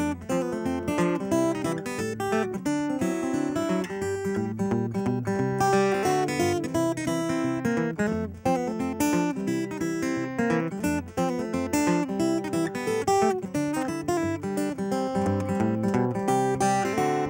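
Steel-string acoustic guitar played fingerstyle with a thumb pick: a ragtime instrumental of quick, continuous plucked notes.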